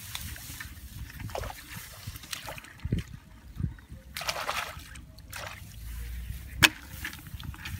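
A hand splashing and sloshing in a muddy, water-filled crab hole, digging through wet mud, with one sharp click near the end as the loudest sound.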